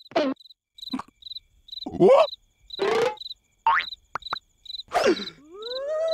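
Cricket chirping for night ambience, a regular short chirp about twice a second, with short swooping cartoon noises in between and a long rising, then held, tone near the end.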